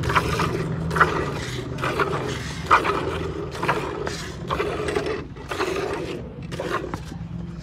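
Hand-milking: squirts of milk hissing into a steel bucket already partly full of milk, about one squirt a second, over a steady low hum.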